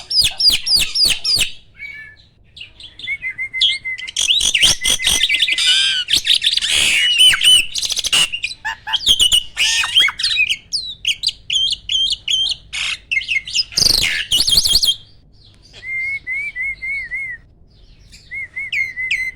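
A jalak (starling) singing loudly and fast: quick runs of sharp, piercing notes mixed with whistles, slurred calls and trills, with a brief pause about three-quarters of the way through before a short low trill.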